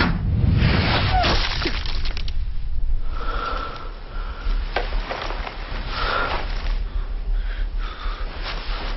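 Film action-scene sound effects: rushes of movement and rustling, a few sharp knocks, and gasping breaths over a low rumble, with short whistling tones partway through.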